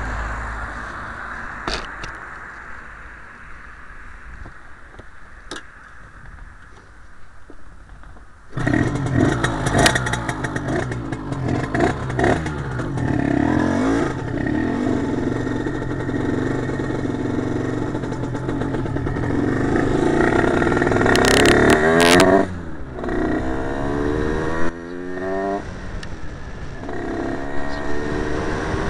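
Derbi Senda's 80cc two-stroke engine starts suddenly about eight seconds in and runs loud, revving. Near the end its pitch climbs several times in a row as the bike accelerates.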